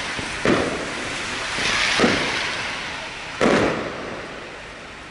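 Fireworks going off: a sharp bang about half a second in, a swelling rush of crackle around two seconds, and another sharp bang at about three and a half seconds, after which the sound dies down.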